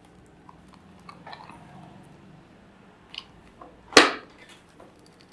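A few small clicks and rustles, then one loud sharp knock about four seconds in.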